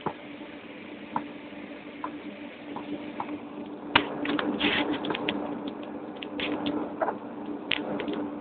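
A football knocks once at the start, followed by a few faint knocks. From about four seconds in comes a dense run of clicks and rustling as the phone camera is handled and swung around, over a steady low hum.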